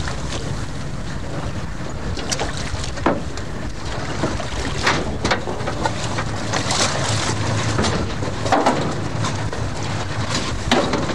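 Yamaha outboard motor running steadily as a small open boat moves over the sea, with wind buffeting the microphone and scattered sharp knocks and splashes.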